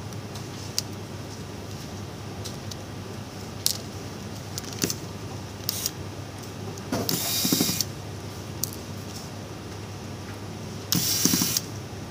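Small electric precision screwdriver whirring in two short bursts, one past the middle and one near the end, driving screws into a smartphone's frame. Before the first burst come light clicks and taps of the phone's parts being handled and seated.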